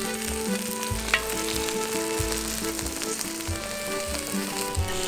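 Jeon (Korean pancakes) frying and sizzling on a griddle, a steady crackling hiss, with soft background music playing over it.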